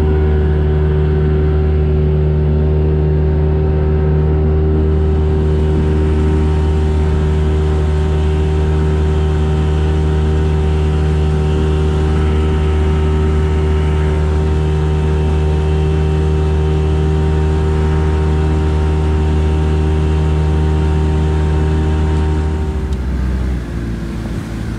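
Outboard motor on a Progress motorboat running steadily at speed, then dropping in pitch near the end as it throttles back.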